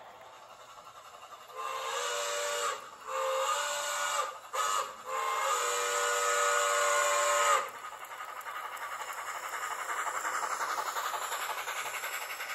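Sound-equipped HO-scale model of a Santa Fe 3800-class 2-10-4 steam locomotive sounding its steam whistle: two long blasts, a short one and a long one, the grade-crossing signal. After the whistle, the train rolls past with a rumble and a fast, regular clicking of wheels on the track that builds as the cars come by.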